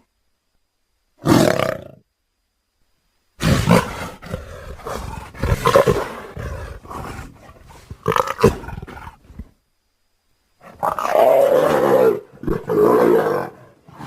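Leopard vocalisations reworked into a dinosaur (Eotyrannus) sound effect. First comes a short growl. After a pause there are several seconds of repeated growling calls, and near the end two long, loud roars follow one another.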